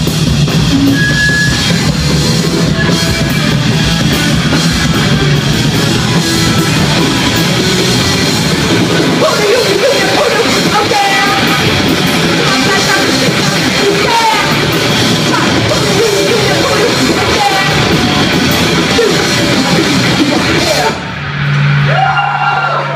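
Live punk rock band playing loud: electric guitar, drum kit and vocals. The song stops about two seconds before the end, leaving a steady low tone.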